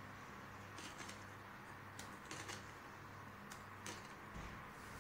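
A spatula scooping thick cream-cheese filling and lightly tapping and scraping a glass bowl: a few faint, scattered ticks over a steady low hum.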